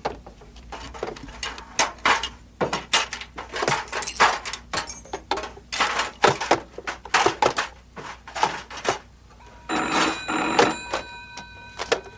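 A run of irregular knocks and clatters, as of objects being handled and set down. Near the end a telephone bell starts ringing.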